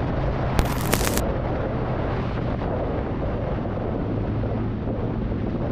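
Motorcycle engine running at a steady low speed under a constant rumble of wind on the microphone, with a brief high hiss about half a second in.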